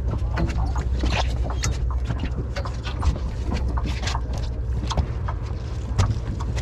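Steady low drone of the sportfishing boat's engine, with scattered irregular clicks and knocks on top.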